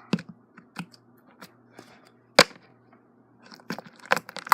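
Sticky homemade slime being pulled out of its container and handled, giving irregular wet crackles and squelches. There is one sharp click about two and a half seconds in, and a burst of crackling near the end.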